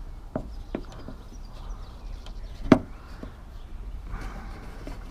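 A few light clicks and knocks of parts being handled inside a car door during lock cylinder removal, with one sharper, louder click a little past halfway.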